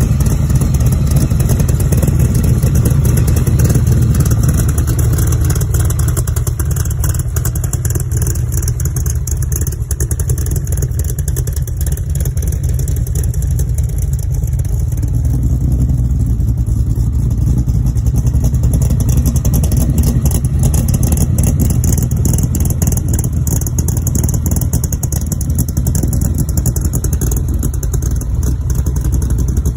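Factory Five MK4 Roadster's engine idling steadily with a low exhaust rumble.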